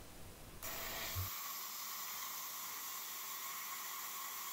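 Diode laser engraver (NEJE 3 Max with E40 module) running while it cuts through a wooden cylinder: a steady hiss that sets in about half a second in.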